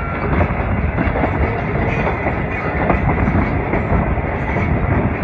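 Passenger train running at speed, heard from an open carriage window: a loud, steady rumble of the wheels on the rails, with a constant run of clicks as they pass over the rail joints.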